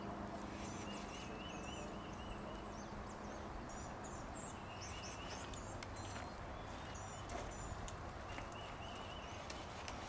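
Songbirds singing: short, high chirped phrases repeating through most of the time, with a lower warbling trill coming in three or four times, over a steady outdoor background hiss.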